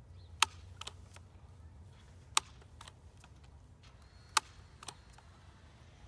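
Daisy Powerline 880 multi-pump air rifle being pumped to build air pressure for a shot. There are three sharp clacks about two seconds apart as the pump arm is worked, each followed by a fainter click.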